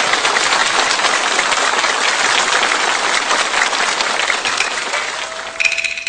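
Audience applauding steadily. Near the end the applause eases and a held instrument tone and a few sharp clicks come in as the Peking opera band starts the accompaniment.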